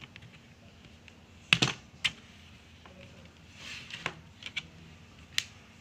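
Sharp clicks and taps of a laptop's opened plastic chassis being handled, one loud click about one and a half seconds in and several lighter ones later.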